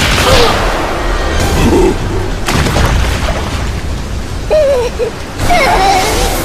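Cartoon storm sound effects: a steady heavy-rain rush with low booming rumbles, broken by short squeaky gibberish cries from the larva characters about two seconds in and again near the end.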